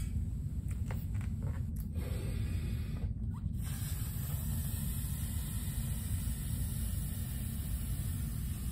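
A balloon being blown up by mouth: a few short clicks as it is handled and stretched in the first seconds, then steady breaths blown into it, over a constant low room rumble.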